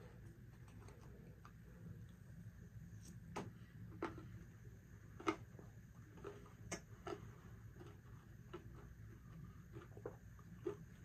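A metal spoon scooping ice cream from a paper McFlurry cup, giving faint, scattered clicks and taps several times.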